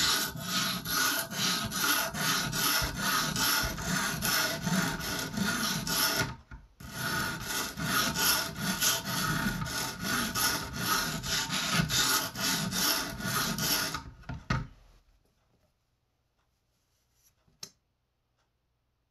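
Coarse 120-grit stone on an Edge Pro guided sharpener's arm scraping back and forth across a small knife's edge in quick, even strokes, grinding the second bevel to raise a burr. The strokes pause briefly about a third of the way in, then stop about three-quarters of the way through, followed by a faint click near the end.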